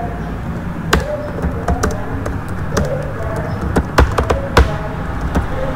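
Typing on a computer keyboard: irregular keystroke clicks, a few a second, with a few louder strokes, over a steady low hum.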